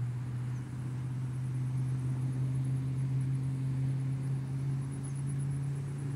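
The electric motor and propeller of a scratch-built foam-board RC plane running steadily at low throttle while it is held by hand: a low hum with a faint high whine above it.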